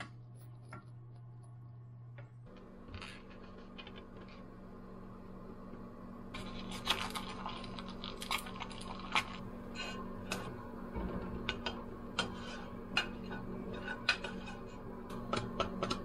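Wooden chopsticks whipping natto in its plastic tub, clicking and tapping irregularly against the container, several strikes a second from about six seconds in. Before that, a low steady hum stops about two and a half seconds in.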